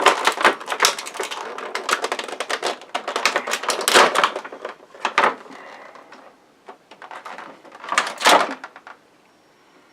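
Stiff molded plastic packaging crackling and clicking as a plastic toy is pried out of it. Dense clicking for about five seconds, then two short bursts with quiet gaps between.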